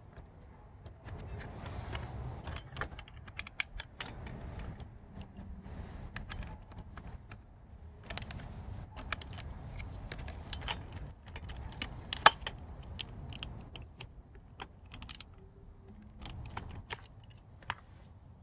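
Metal hand tools clinking and a ratchet clicking in irregular bursts as socket-head bolts on a pit bike's handlebar mount are loosened, with one sharp metallic clack about twelve seconds in.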